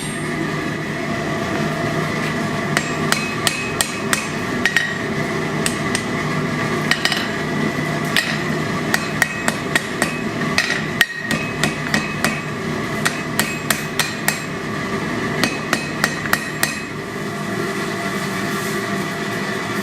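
Blacksmith's hammer striking hot steel tong stock on an anvil in quick runs of blows, about two to three a second, from about three seconds in until near the end, with a short break near the middle. A steady noise runs underneath and carries on alone after the hammering stops.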